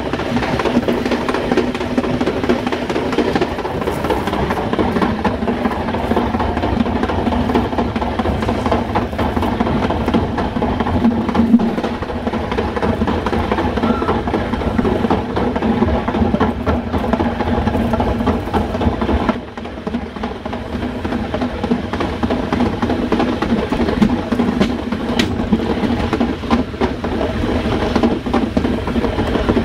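Metre-gauge train running along the track, heard from inside its rear cab: a steady rumble of wheels on rail under a constant hum, with occasional sharp knocks, briefly quieter about twenty seconds in.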